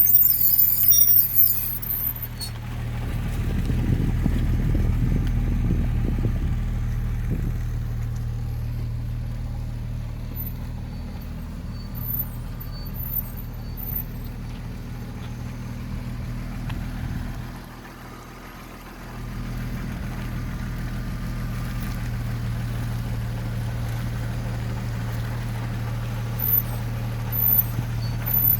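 Audi A6 C4 running with a steady low engine hum, briefly quieter about two-thirds of the way through; the car has a whistling and grinding noise that the owner reports only when turning.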